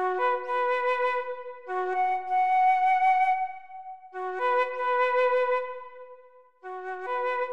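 Background music: a slow melody of held notes, played in phrases about two seconds long with brief dips between them.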